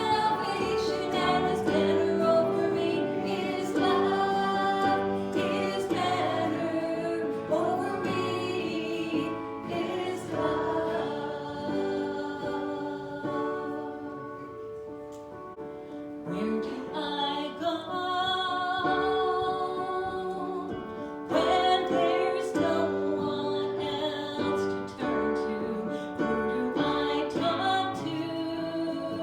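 Christian worship song: several voices singing held melody lines with instrumental accompaniment, dropping softer about halfway through before building up again.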